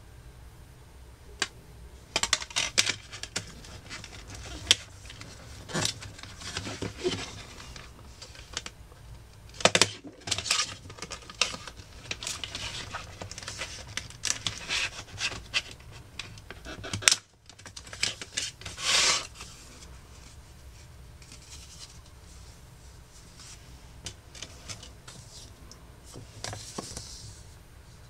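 Packaging of a CD single being handled and opened by hand: irregular rustling, scraping and sharp clicks, busiest in the first two-thirds and quieter near the end.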